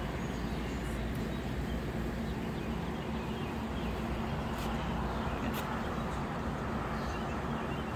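Steady outdoor ambience heard from a high balcony: an even low rumble of distant city traffic, with a couple of faint brief high sounds near the middle.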